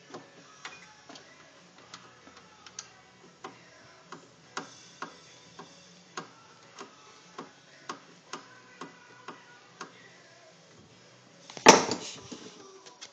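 A run of sharp metallic clicks, about two a second, while the motor stops for the rear motor of a K-9 dryer are being fastened, then one loud clatter near the end. Faint music plays underneath.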